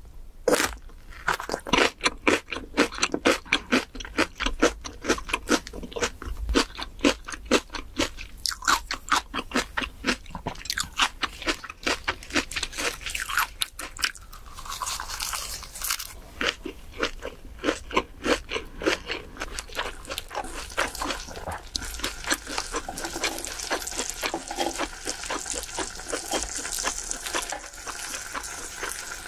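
Close-miked crunchy chewing of a raw green chili pepper and a lettuce-wrapped bite of grilled pork belly, about three crunches a second. After about 20 s the chewing fades and pork sizzling on the griddle takes over as a steady hiss.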